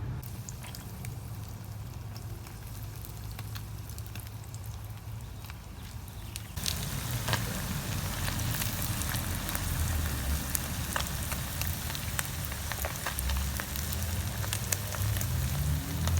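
Small anchovies deep-frying in hot oil, a steady sizzle full of fine crackles and pops. The sizzle gets suddenly louder and busier about six and a half seconds in.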